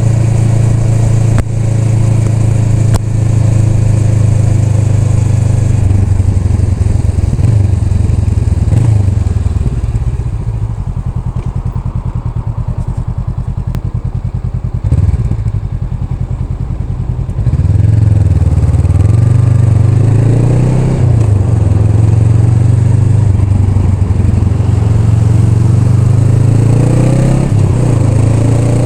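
Honda Rebel 500's 471 cc parallel-twin engine under way: steady at first, then eased off and quieter for several seconds in the middle. It picks up again about two-thirds through, rising in pitch as it accelerates.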